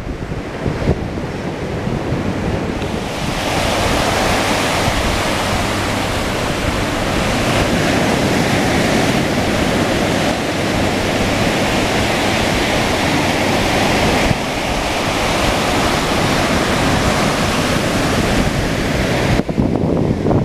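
Rough surf breaking on the shore, a steady loud rush, with wind buffeting the microphone. The rush swells about three seconds in and drops off sharply near the end.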